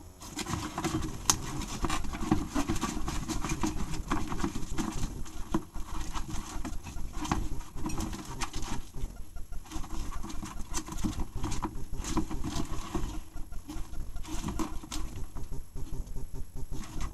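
A hedgehog eating noisily, a rapid, irregular run of wet smacking and crunching chews with a few short pauses.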